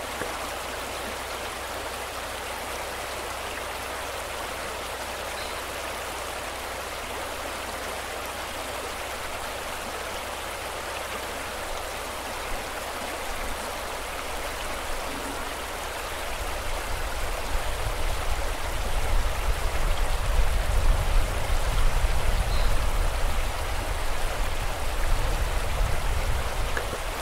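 River water rushing steadily. From about sixteen seconds in, a deep low rumble swells in underneath and the sound grows louder.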